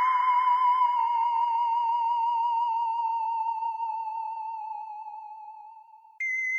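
Sci-fi alien sound effect: an electronic theremin-like tone that has just dropped to a lower pitch wavers with a fast vibrato while slowly sinking and fading out. About six seconds in, a higher steady tone cuts in abruptly.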